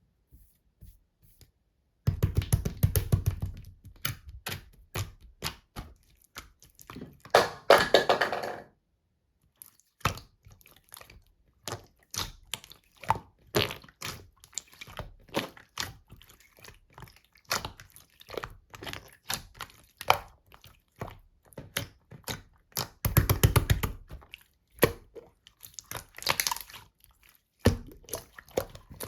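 Slime being squeezed and pressed by hand: a long run of sharp clicks and pops, with denser crackling bursts about 2 seconds in, around 8 seconds and near 23 seconds.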